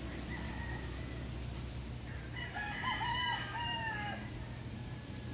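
A rooster crowing once, a single drawn-out crow about two and a half seconds in, lasting roughly a second and a half.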